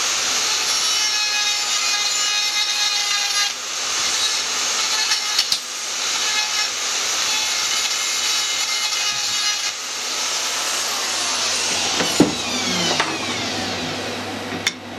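High-speed rotary power tool grinding out a hole in sheet metal to enlarge it, with a steady high whine and grinding noise and brief dips twice as it bites. Near the end it is switched off and the whine falls away as it coasts down, with a click.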